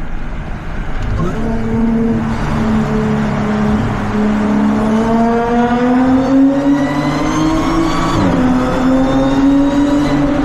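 Audi B8 S4's supercharged 3.0-litre V6 accelerating hard, its pitch climbing steadily through the gear. About eight seconds in the pitch drops sharply at an upshift and starts climbing again.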